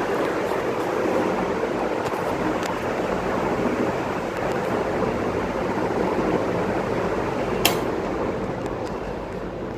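A Vision Super electric fan running with a steady hum and rush of air, with one sharp click about three-quarters of the way through; the sound eases off slightly near the end.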